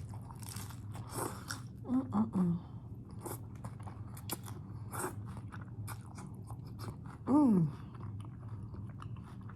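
Close-up chewing of a crunchy hard-shell taco with pickles: a string of sharp, crisp crunches. Twice the eater gives a short falling hum of enjoyment.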